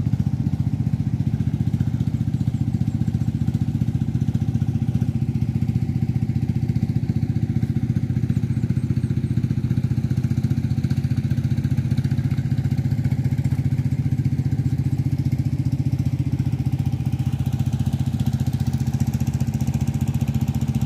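A small engine running steadily at one speed, with a rapid, even beat and a low hum that does not change.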